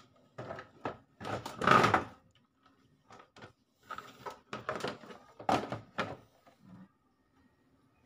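Irregular plastic knocks, clunks and rattles as the opened top casing of a two-tub washing machine is handled around its spin-dryer door switch, the loudest about two seconds in.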